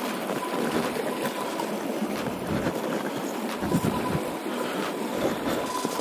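Creek water rushing under a small footbridge, a steady noisy wash, with a few low thumps about two thirds of the way through.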